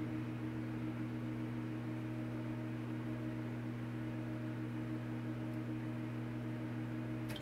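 A steady low machine hum made of several unchanging tones, which cuts off suddenly at the very end.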